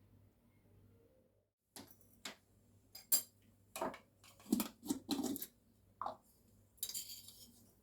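Kitchenware handled on a counter: a quiet start, then a string of separate clinks and knocks of dishes and utensils, followed near the end by a short hissing rustle.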